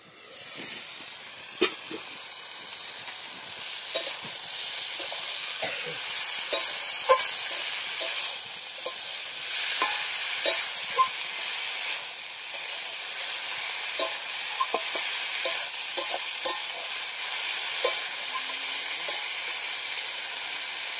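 Cabbage and potatoes sizzling as they fry in a wok, growing louder in the first second. Throughout, a flat metal spatula scrapes and knocks against the pan as the vegetables are stirred.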